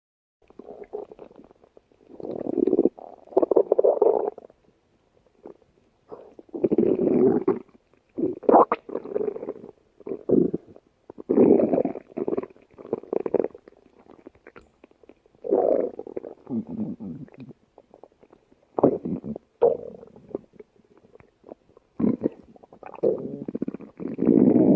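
A stomach growling in a long run of irregular rumbles, each lasting about half a second to a second and a half, with short pauses between.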